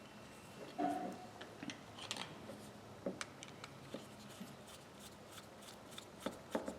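Faint, scattered light clicks and scrapes of small metal parts as a screwdriver sets screws into a ratchet's cover plate, with a short squeak about a second in.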